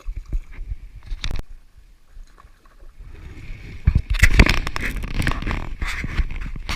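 Knocks and scraping on a kayak, growing into a loud rushing, clattering noise from about three seconds in.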